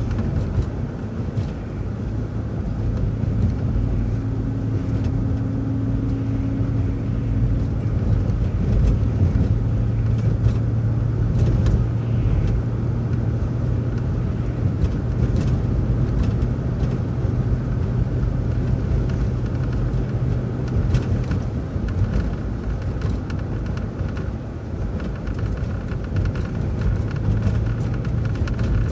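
City transit bus driving along at steady speed: a constant low engine drone over road rumble, with a faint higher tone for a few seconds near the start.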